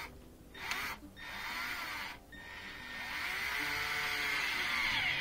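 Cordless drill/driver tightening a hose-clamp screw on a dishwasher drain hose: a few short spurts, then a longer run of about three and a half seconds whose pitch rises and falls.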